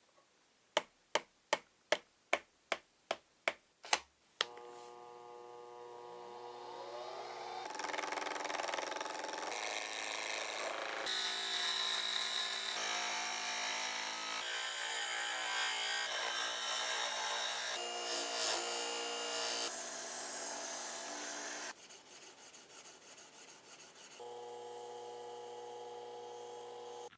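About eight sharp taps in quick succession, then a small power tool motor spinning up and working teak wood. Its steady whine and grinding noise shift abruptly every few seconds as short segments follow one another.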